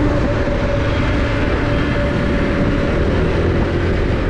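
Motorbike riding along a city street: a steady engine hum and road noise under heavy wind rumble on the microphone.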